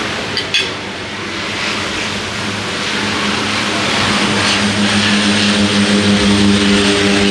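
An aircraft's engines running with a steady hum that grows gradually louder as it comes nearer.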